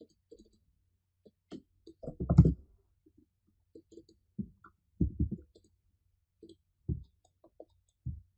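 Computer mouse clicks and keyboard keystrokes close to the microphone: a scattering of short, sharp clicks and taps, the loudest a quick cluster about two seconds in.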